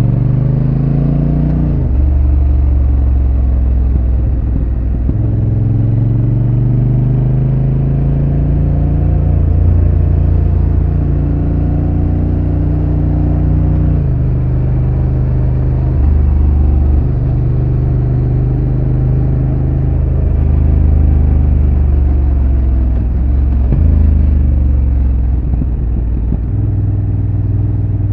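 Honda NT1100's parallel-twin engine through its stock exhaust, heard from on board while riding. The engine note climbs and falls as the bike is ridden at an easy pace, with a sudden drop in pitch at each of several gear changes.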